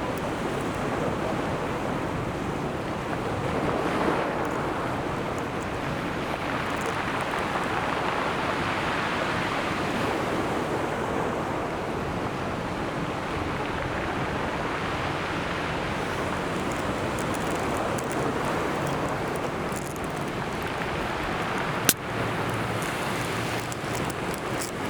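Ocean surf washing onto the shore in a continuous rush of breaking waves that swells and eases every few seconds. There is a single sharp click near the end.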